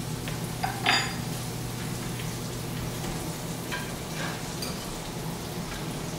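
Vegetables frying in butter in a pan on a gas range: a steady sizzle over a low hum. A sharp metal clink comes about a second in, and a few light clicks follow later.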